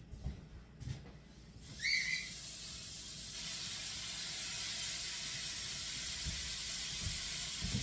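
Raw ground beef dropped into a hot, oiled frying pan to brown: a sudden hiss about two seconds in, settling into a steady sizzle that grows a little louder a second later.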